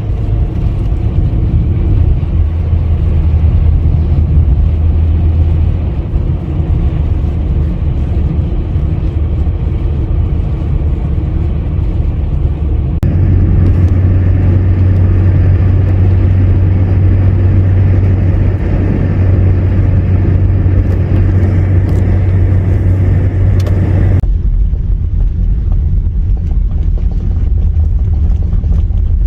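Loud, steady low rumbling noise, with its character changing abruptly about 13 and 24 seconds in.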